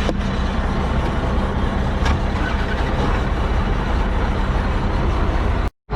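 Heavy vehicle engine running steadily, cutting to a moment of silence shortly before the end.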